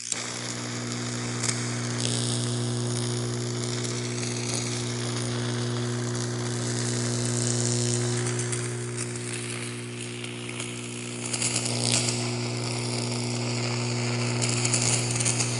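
Electric-shock sound effect: a steady electrical buzz with sizzling, crackling sparks over it, flaring sharper about a second and a half in and again near the end.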